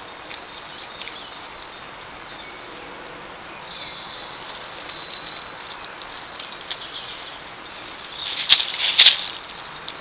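Woodland birds calling over a steady hiss: a thin held note about four seconds in, scattered short calls, and a louder burst of quick, sharp calls near the end.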